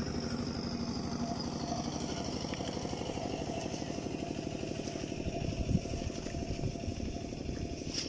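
A small engine running steadily, with a short thump a little past halfway.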